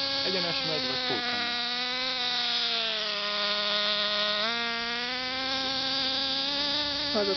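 Nitro RC car's small glow-fuel engine running at a high-pitched buzz, its pitch sagging slightly a few seconds in and then jumping up sharply just past halfway as the throttle opens again.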